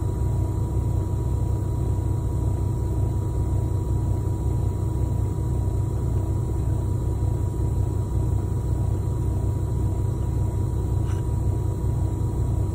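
Semi truck's diesel engine idling steadily: an even low rumble heard from inside the cab.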